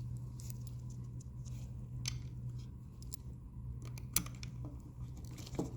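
A small screwdriver driving a screw back into a Roomba S9 wheel module: scattered light clicks and scratches of the tool on the screw and plastic housing, over a steady low hum.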